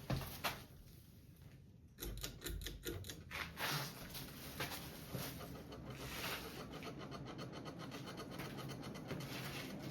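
Hunter Summer Breeze ceiling fan switched to high with its pull chain and speeding up: a click or two near the start, then a run of rapid rattling ticks, settling into a steady rush of moving air with light repeated ticking. The rattle comes from the wobbling, loosely mounted ceiling box, not the fan, in the owner's view.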